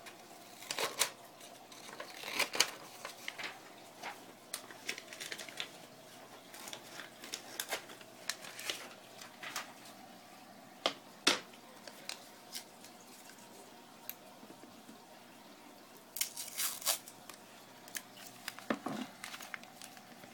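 Strips of tape being torn off and pressed down onto a plastic deli cup lid: scattered sharp tears, clicks and crinkles, with a longer rip about three-quarters of the way through.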